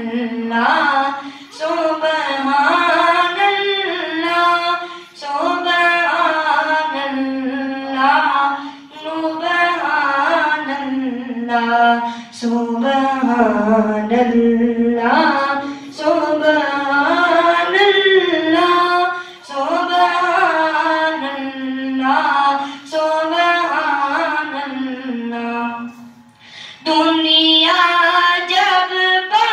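A boy singing a devotional kalaam unaccompanied into a microphone, in long melodic phrases of about three and a half seconds each with short breaths between. The longest break comes near the end.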